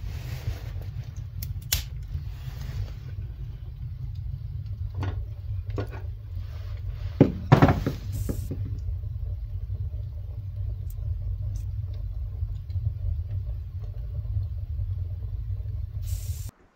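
Steady low rumble with a few sharp knocks and clatters, the loudest cluster about seven seconds in; the rumble cuts off abruptly near the end.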